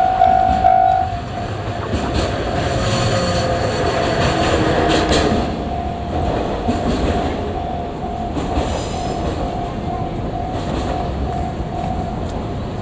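Freight train's loaded container wagons rolling past over the level crossing, wheels clattering over rail joints with a steady rumble. The crossing's warning bell keeps ringing in even repeats, loud for about the first second and then fainter.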